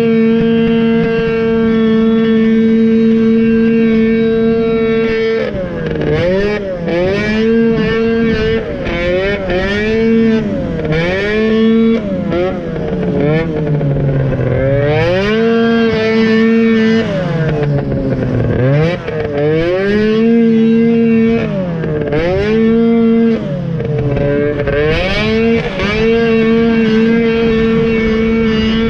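Snowmobile engine under load. It holds at high revs for several seconds, then repeatedly drops and climbs back, with two deeper drops in the middle.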